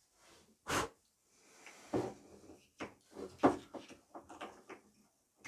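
A string of sharp clicks and knocks from handling a kerosene lantern and a Zippo lighter as the lantern is lit, with a short burst about three-quarters of a second in and the loudest knock past the middle.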